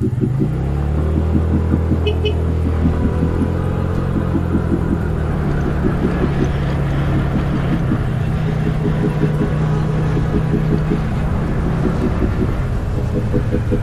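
A motor vehicle's engine picking up speed, its pitch rising about half a second in, then running steadily under a low rumble.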